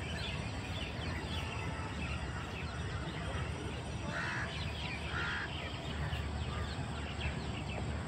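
Birds calling: many short high chirps, and two louder, harsh calls about a second apart midway, over a steady low rumble.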